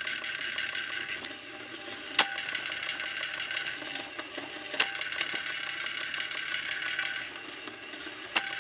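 Wire stripping machine running steadily as thick copper cable is fed through it, a mechanical hum with three sharp clicks spread through it.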